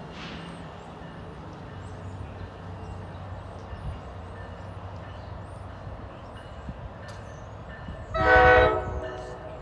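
NJ Transit trains: a steady low rumble from a train running, then, about eight seconds in, a multi-note train horn sounds one loud blast about a second long.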